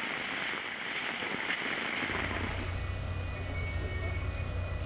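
Heavy rain hissing for about two seconds, then an abrupt change to a steady low rumble of idling vehicles, with a faint high steady tone partway through.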